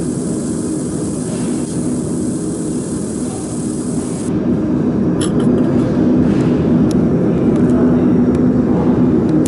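20 W fiber laser marking machine running with a steady low hum and drone while it marks. A few light clicks come after about five seconds.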